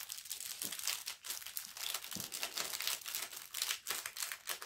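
Plastic packets of seed beads crinkling as they are opened and unwrapped by hand, a dense run of irregular crackles.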